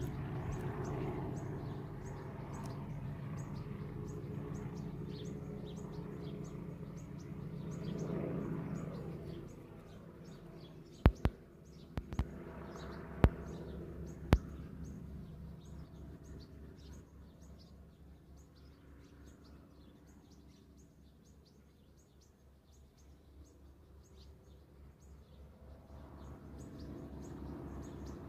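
Small birds chirping outdoors over a low droning hum that swells and then fades away about ten seconds in. Halfway through come four or five sharp, loud clicks close together.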